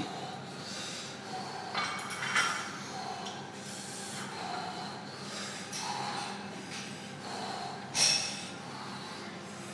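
Powerlifter's forceful breaths and snorts, repeated every second or so, as he psyches up over the bar before a maximal deadlift; one sharper, louder burst about eight seconds in.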